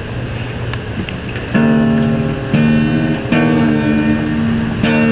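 Steel-string acoustic guitar strummed. After about a second and a half, four separate chords are struck, each ringing out before the next.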